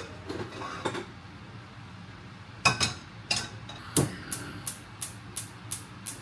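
Kitchen utensils knocking and clattering: a few scattered sharp knocks, then an even run of about three knocks a second in the second half.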